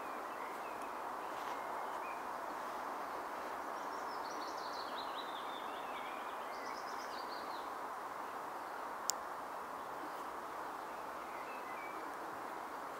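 Outdoor ambience: steady background noise with a songbird singing a short descending run of notes about four seconds in. A single sharp click comes about nine seconds in.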